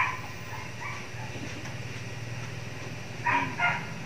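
A dog barking: a bark right at the start, then a quick run of about three barks near the end, over a steady low hum.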